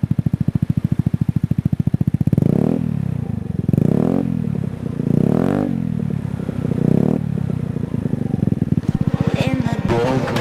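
Motorcycle engine running through an aftermarket Shijiro Racing STD exhaust: it idles with a quick, even pulse, is revved in several short blips that rise and fall, then settles back to idle.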